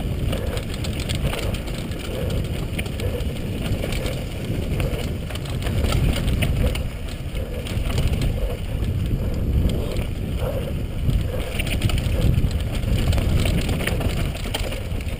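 KHS Lucky 7 downhill mountain bike ridden fast down a dusty dirt trail, heard from a helmet camera: tyres rolling over loose dirt and rock with constant rattle and clatter from the bike, under heavy wind rush on the microphone.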